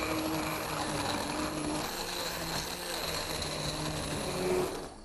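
Hand-held immersion blender running in a pot of soup, puréeing cooked swede: a steady motor whine over churning liquid, cutting off at the very end.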